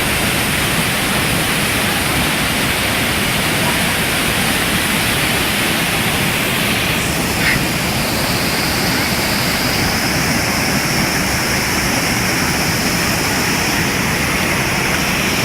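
Waterfall rushing with a steady, loud, unbroken roar of falling water.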